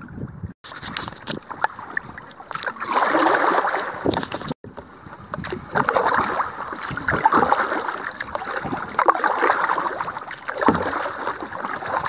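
Canoe paddle strokes: water swishing and splashing off the paddle blade in repeated washes, one every two to three seconds.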